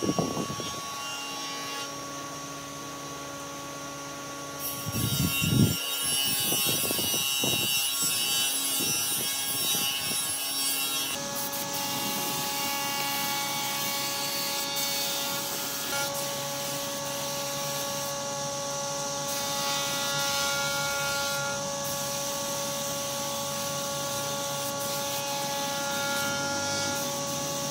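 A woodworking power tool working on wood. There are a few knocks about five seconds in, then the tool runs steadily.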